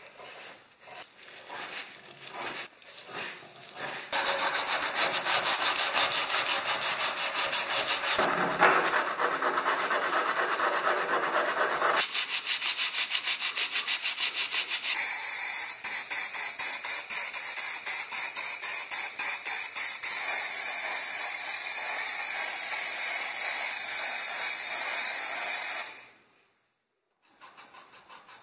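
Hand scrubbing and sanding of a bent steel wire fan stand: irregular scrubbing strokes at first, then fast, even back-and-forth rubbing with a sanding sponge. It stops briefly near the end, and quieter rubbing strokes follow.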